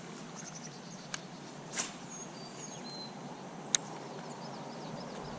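Faint outdoor riverside ambience with short, high bird chirps, and three sharp clicks, the loudest near the end.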